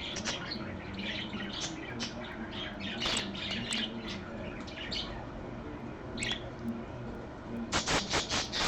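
Budgerigar chattering with short squawks and chirps, then a fast run of sharp clicks near the end.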